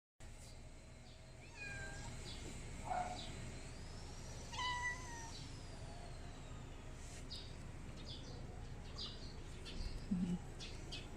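Domestic cat meowing a few short times, the clearest meow about five seconds in.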